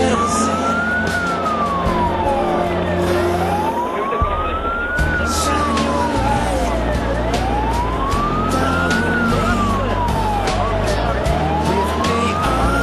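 Fire engine's wailing siren, rising and falling slowly about once every four seconds, heard from inside the cab over the engine and road noise.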